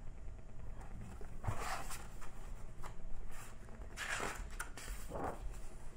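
A large picture book being handled and its pages turned: several soft, brief rustles.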